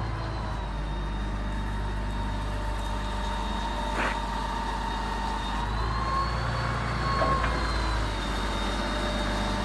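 O&K F156 motor grader's diesel engine running steadily at low speed, with a thin high whine above it that wavers slightly in pitch.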